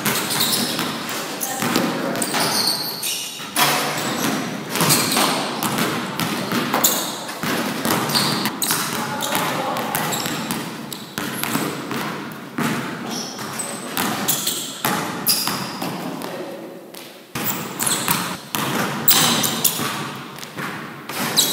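A basketball being dribbled and bounced on a gym floor, with thuds repeating irregularly and echoing in a large hall.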